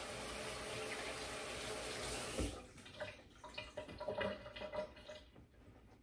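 Kitchen tap running steadily, shut off about two and a half seconds in with a knock, followed by a few light clinks and knocks of things being handled.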